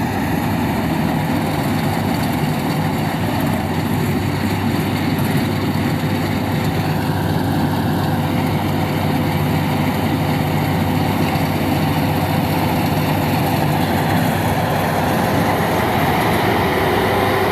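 Rice harvester running steadily: a heavy engine drone with a thin steady whine from its machinery.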